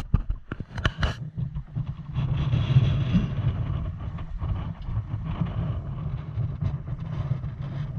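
Wind buffeting the microphone: a choppy low rumble throughout, with a few sharp knocks in the first second.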